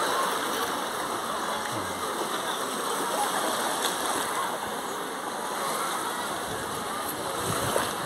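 Busy seaside beach ambience: small waves lapping and splashing in shallow water, mixed with the distant, indistinct voices of many bathers.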